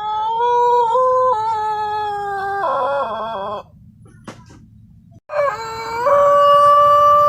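White Pelung roosters crowing: a long, wavering crow of about three and a half seconds that ends in a shaky, trembling tail, then after a short break a second long crow starts about five seconds in and is held steady on one pitch.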